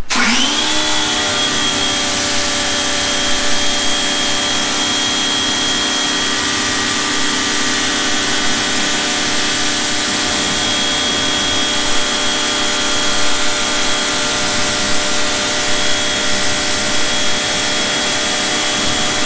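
Ryobi pressure washer kicking on, its pitch rising over the first half second, then running steadily with the hiss of the water jet rinsing cleaning foam off a wheel and tire.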